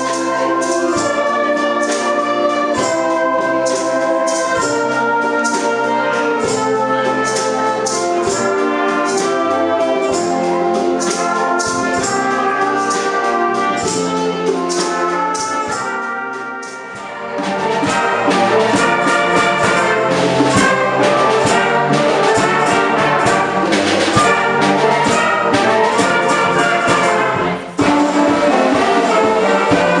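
A school concert band playing, with brass such as trumpets and trombones to the fore. About halfway through, the music fades briefly and comes back fuller. Near the end it breaks off abruptly and picks up again at once.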